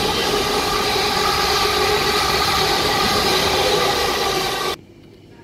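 Siemens Desiro electric multiple unit running past the platform at speed: a loud rush of wheel and rolling noise with a steady whine of several tones. It cuts off suddenly near the end.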